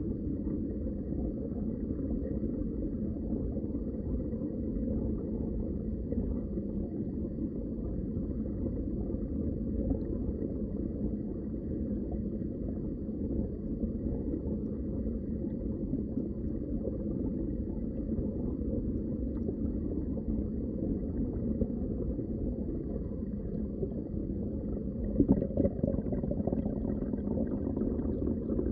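Muffled underwater water ambience: a steady low rush of moving water, with a brief louder knock near the end.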